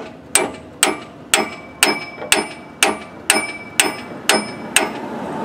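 Hammer blows on the old timing gear laid over the new crankshaft timing gear, driving the new gear onto the crank of a Ford 4.9-litre straight-six. About ten sharp metallic strikes, roughly two a second, each ringing briefly, stopping shortly before the end.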